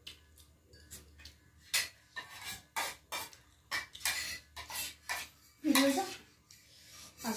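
Metal spoons clinking and scraping against stainless steel plates in a string of short, sharp clinks, with a brief voice about six seconds in.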